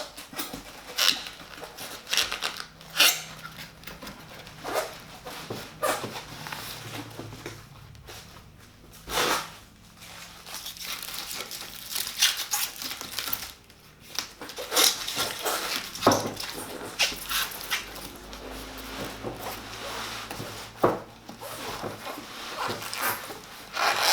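Packaging and PC hardware being handled during an unboxing: irregular rustling and crinkling with scattered clicks, knocks and scrapes, a few sharper knocks standing out.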